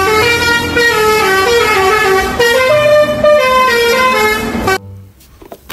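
Indonesian tour bus's musical 'telolet' horn playing a tune of stepping notes, loud, then cutting off suddenly near the end.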